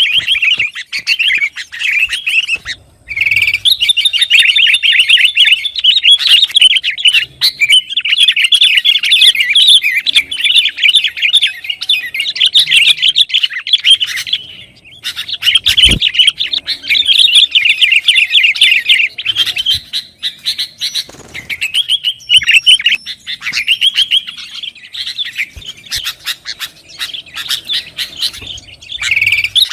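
Sooty-headed bulbul (kutilang) calling in long runs of rapid, noisy chattering notes, broken by short pauses about 3 seconds and 15 seconds in. There is a brief low thump a little after the second pause.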